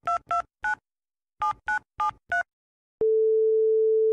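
Telephone keypad dialing tones: seven short two-note beeps, three then four after a brief pause. About three seconds in, a long steady telephone line tone begins as the call goes through.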